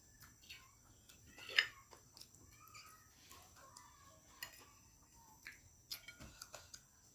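Quiet eating sounds of a mukbang meal of fried rice: scattered clicks and taps of a spoon on a plate and chewing, with one sharper click about one and a half seconds in. A faint steady insect chirring runs underneath.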